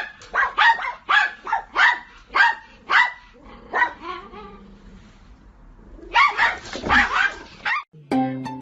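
A dog barking: a run of short barks about two a second, a pause, then a quicker flurry of barks near the end.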